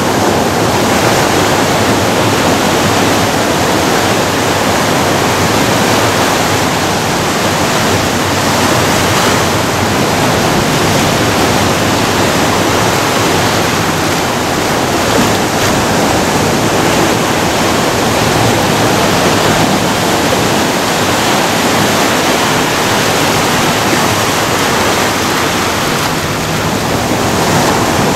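Ocean surf breaking and washing in over beach rocks, a loud, steady rush of water that swells and eases a little.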